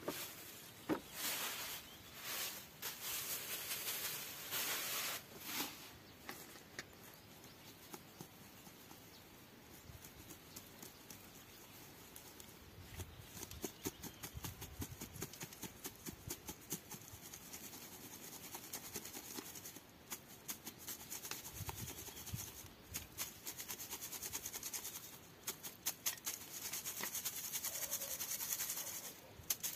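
Wood ash poured into a metal mesh kitchen sieve, then sifted by shaking the sieve over a galvanized bucket. Soft hissing swells come first, then a long run of fast, light ticking and rasping as ash and leftover cinders scrape in the mesh.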